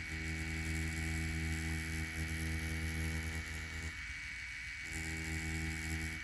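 Spectra Flux wireless rotary tattoo pen running a 9-round liner at about six volts, a steady humming buzz with several pitched overtones, as the needle lines ink into orange peel. The upper part of the hum thins out briefly about four seconds in.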